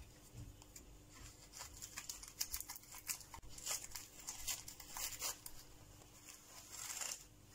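Scissors snipping through a taped paper-towel wrapping, with faint crinkling and tearing of the paper as it is cut open: a run of short, uneven crackles and snips.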